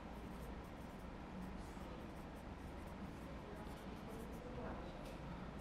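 Whiteboard marker writing on a whiteboard: faint, irregular strokes over a steady low room hum.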